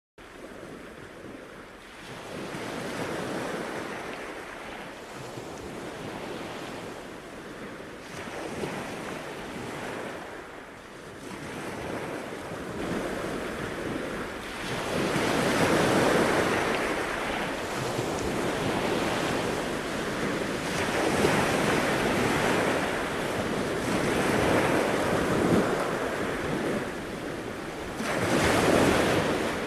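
Surf washing up the beach, swelling and easing with each wave and louder in the second half, with wind rumbling on the microphone.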